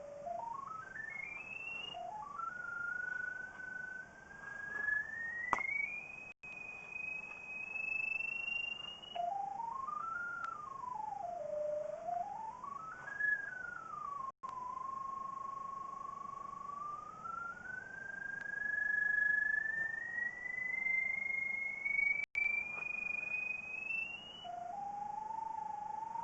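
Handheld pipe locator's audio tone: a single pure electronic tone that slides up and down in small steps, its pitch following the signal from the sewer camera's sonde as the locator is swept over the ground. It climbs slowly for long stretches and swings down and back up once in the middle.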